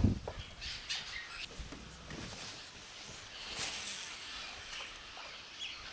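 A dull thump at the start, then a few short high chirps from small birds over a quiet outdoor background, with a brief rise of hiss about three and a half seconds in.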